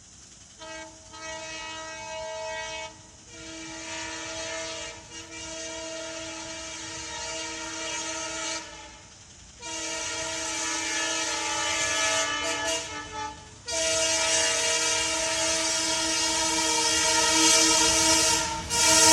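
Multi-tone air horn of twin ALCO diesel locomotives hauling a loaded freight train, sounded in four long blasts with short gaps, growing louder as the train approaches. The train's running noise builds under the last blast near the end.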